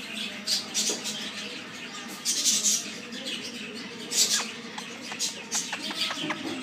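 Indian ringneck parakeet nibbling at a finger: short, breathy high squeaks, then a run of small beak clicks in the second half.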